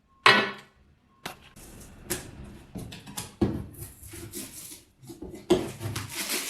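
Objects being handled by hand: a sharp knock about a quarter second in, then a string of clicks, taps and rustles that gets busier near the end.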